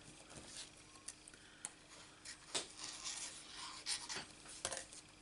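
Faint handling of cardstock pieces on a craft mat: light rubs, scrapes and small taps at irregular moments, a few louder ones in the second half.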